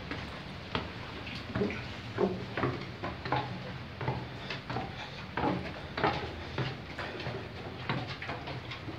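Footsteps scuffing and knocking on a rocky cave floor, irregular, about two a second.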